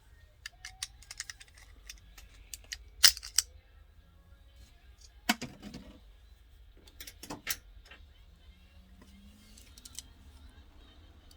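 Handling noise from a small diecast toy car: scattered sharp clicks and taps as it is turned over and its parts are worked, with the loudest click about three seconds in and a knock about five seconds in.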